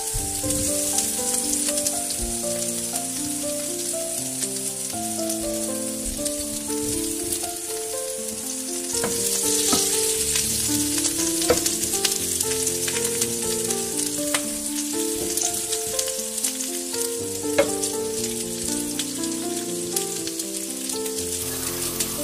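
Chicken, green chillies and garlic sizzling in hot oil in a stainless steel pot while a spatula stirs them, with a few sharp knocks against the pot. The sizzle swells briefly about nine seconds in. Background music with a stepping melody plays throughout.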